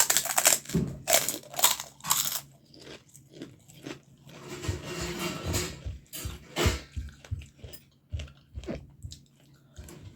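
Close-up crunching and chewing of a crisp fried snack: several loud crunches in the first couple of seconds, then softer chewing.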